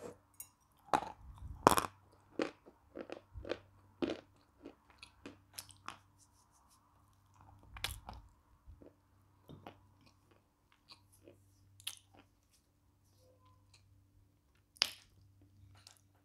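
Dry crunches of a large lump of natural chalk being bitten and chewed with a lapel microphone close to the mouth. The crunches come thick and fast for the first several seconds, then thin out to a few single crunches as the chewing slows.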